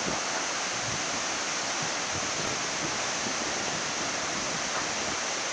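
Muddy floodwater rushing and churning through a washed-out road embankment, a steady continuous rushing noise.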